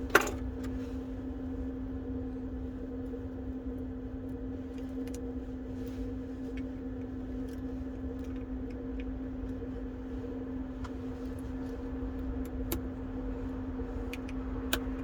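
Steady low electrical hum with a constant tone, over which small tools and phone parts give scattered light clicks and taps as components are fitted back. A sharp click comes just after the start.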